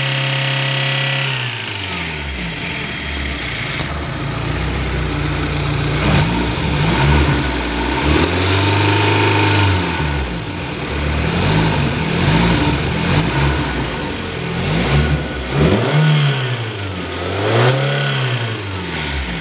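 Car engine idling, then revved up and let fall back several times, rising and falling in pitch, to bring out a knock in the engine.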